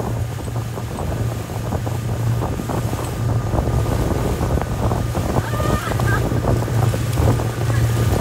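Motorboat engine running steadily at speed while towing, with wind buffeting the microphone and water rushing and splashing past.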